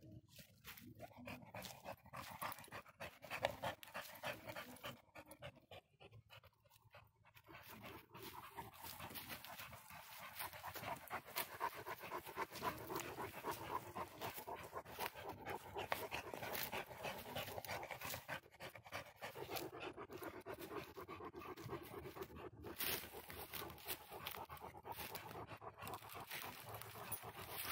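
A dog panting steadily, growing louder about ten seconds in.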